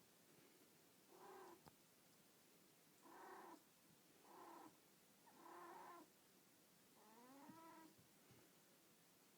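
Birman kitten mewing: five short, high calls a second or two apart, the last one rising in pitch.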